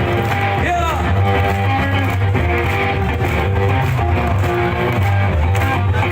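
Live rock music: an electric guitar playing a riff with a few bent notes over drums, loud and steady.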